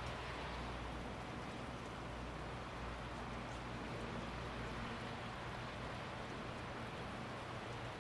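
Steady rainfall, an even hiss of rain on surfaces, with a low steady hum underneath.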